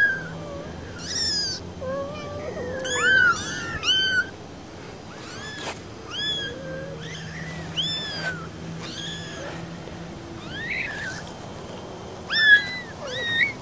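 Several four-week-old kittens mewing, short high-pitched cries repeated over and over, sometimes two at once.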